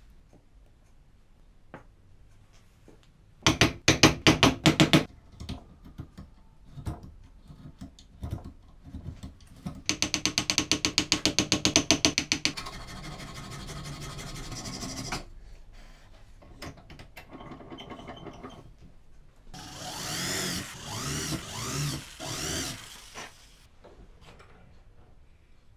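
Hand tools working a small piece of wood held in a bench vise: a quick run of sharp taps a few seconds in, a fast, even rattle of clicks for a couple of seconds midway, and later a few seconds of scraping strokes.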